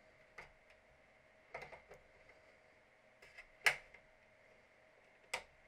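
Plastic snap clips of an Xbox One casing clicking and cracking as the shell is pried apart along its seam with a cloth-taped butter knife. Several small clicks, the sharpest snap a little after halfway and another near the end.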